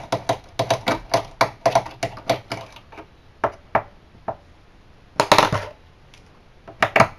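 A screwdriver clicking as it turns screws out of an all-in-one computer's metal back plate: a quick run of sharp clicks, about three a second, then scattered clicks, a short clatter about five seconds in, and two more clicks near the end.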